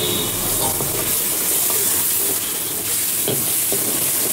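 Manchurian balls sizzling in hot oil and sauce in a steel wok, a steady frying hiss, as a steel ladle stirs them, with a few short knocks of the ladle against the wok in the second half.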